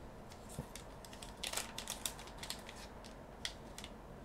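Trading cards being handled and flipped through: a scatter of faint, light clicks and slides of card stock, busiest about a second and a half in.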